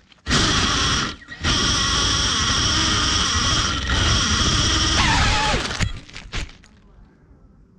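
FPV quadcopter's brushless motors spinning up hard to a loud, steady high whine while the drone lies grounded in leaf litter. The whine cuts out briefly about a second in, then winds down with a falling whine near the end. A few short knocks and rustles follow as the drone tips over onto the leaves.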